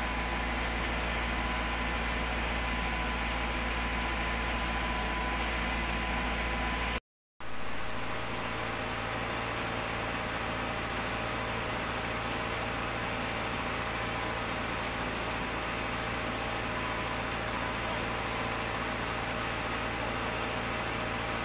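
An engine idling steadily. It cuts out completely for a split second about seven seconds in, then resumes with less low rumble.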